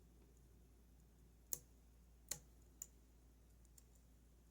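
Small metallic clicks from a lock pick working the pins of a Goal Z pin-tumbler lock during single-pin picking: three sharp clicks between about one and a half and three seconds in, then a faint one.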